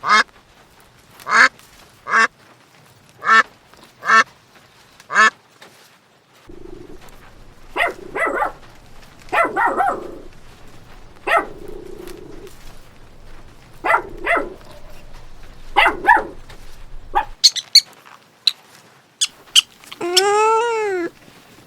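A string of short, sharp animal calls, some in quick pairs; near the end one longer call rises and falls in pitch.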